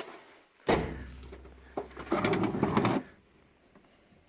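Steel drawers of a 1980s Snap-on KRA tool chest being worked on their runners: a knock under a second in, then a rolling slide that grows louder and stops abruptly about three seconds in.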